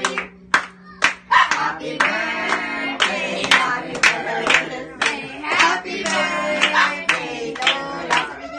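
A small group of people singing a birthday song and clapping along, about two claps a second.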